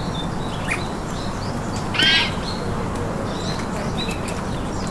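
High-pitched animal calls: scattered short chirps, and one louder, short squealing call about two seconds in, over a steady outdoor hiss.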